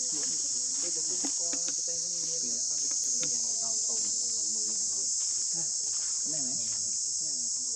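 A chorus of insects keeps up a steady, high-pitched drone without a break.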